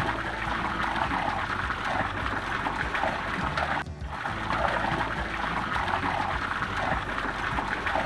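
Water pouring from a carved bull-head stone spout and splashing into a stone pool: a steady splashing hiss, briefly cut off about four seconds in.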